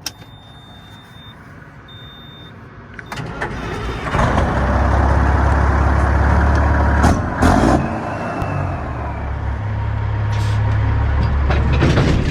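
Heavy truck's diesel engine starting up about four seconds in and then running steadily, with two sharp knocks a few seconds after it starts. Two faint high beeps sound before the engine starts.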